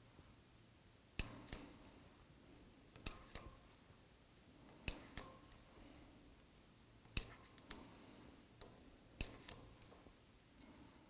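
M4 × 0.7 plug tap being turned by hand in a tapped hole in a lathe's cross slide: sharp clicks, mostly in pairs, about every two seconds as the tap is worked in and backed off to clear chips.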